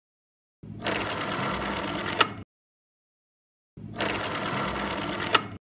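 A mechanical whirring sound effect, played twice, each run about two seconds long and ending in a sharp click.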